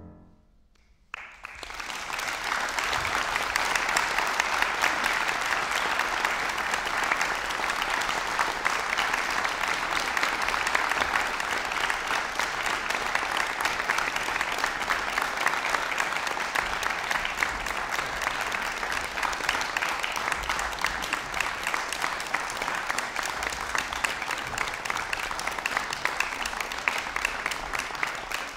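A grand piano's last chord fades away, and about a second in a concert audience starts applauding, steady and sustained.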